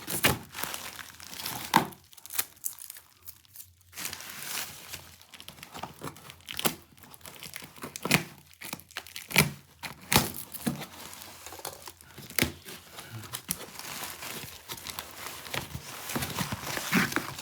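Packaging being handled, crinkled and torn open in irregular bursts of rustling, with a short lull about two seconds in.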